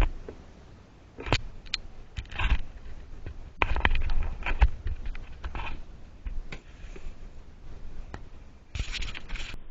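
Irregular food-preparation handling noises: scraping, crackling and crinkling with scattered knocks and thuds, loudest about four seconds in and again near the end.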